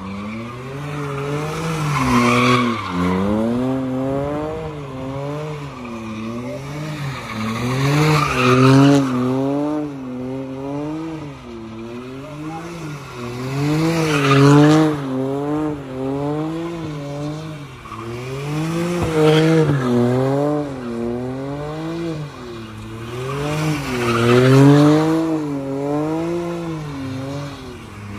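A car spinning donuts: the engine's pitch wobbles rapidly up and down as the throttle is worked, and the tyres squeal. The squeal swells to a loud peak about every five to six seconds as the car comes round past.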